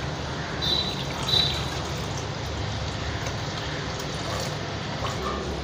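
Thin second-press coconut milk being poured into a hot uruli of jaggery-cooked grated pumpkin, over a steady low hum.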